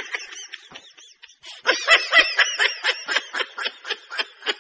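Snickering laughter in quick short breathy bursts, about four to five a second, faint at first and louder from about a second and a half in.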